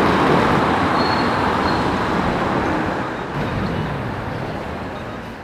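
City street traffic noise, a steady wash of passing cars, fading out over the last two seconds or so.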